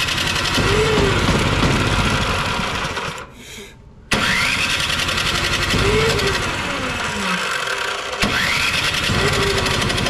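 Electric starter cranking the snowblower's LCT 208cc-class four-stroke engine in three long bursts, each opening with a rising whine, with a second's pause after the first and a barely-there pause before the last. The engine turns over without settling into a run: a no-start that is traced to a fuel problem in the carburetor.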